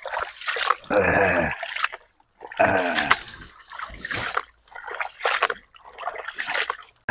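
Hands sloshing and rubbing small river fish in a plastic tub of water, with repeated splashes and drips as they are washed. Two short pitched calls stand out about a second in and again between two and a half and three seconds in.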